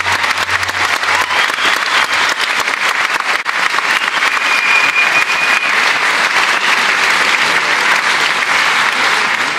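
Concert audience applauding steadily, with one long whistle from the crowd about halfway through.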